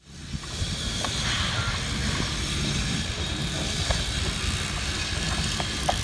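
Construction-site ambience: a steady low rumble with hiss above it and a few faint clicks and short chirps.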